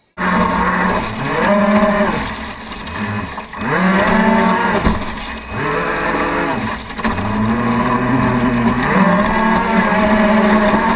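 Onboard sound of an RC speedboat's twin Graupner Speed 600 electric motors whining. The pitch rises and falls in about four throttle surges, then holds steadier near the end, over the hiss of water rushing past the hull.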